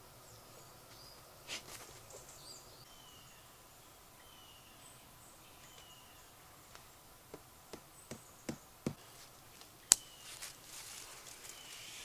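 Quiet woodland ambience with small birds giving short chirps, and a few light clicks and knocks from tarp pegs and guy line being handled. There is a run of ticks about seven to nine seconds in, and one sharper click near ten seconds.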